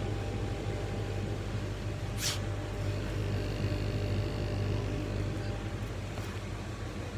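Kamach 6090 CO2 laser cutting and engraving machine running: a steady mechanical hum of its fans and pumps, with a short hiss about two seconds in and a faint high whine for a second or so near the middle.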